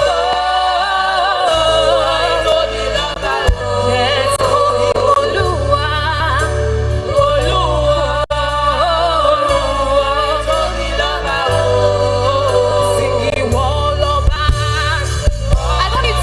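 Live gospel worship music: voices singing a sustained, wavering melody over a deep bass line that moves between held notes.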